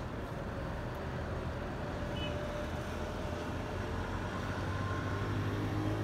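An engine running steadily as a low rumble, its hum growing a little louder near the end.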